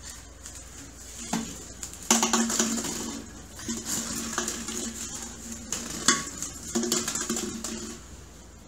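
Glass Snapple bottles clinking and knocking against each other and a hard surface as a toddler handles them, with sharp knocks about one and a half, two and six seconds in.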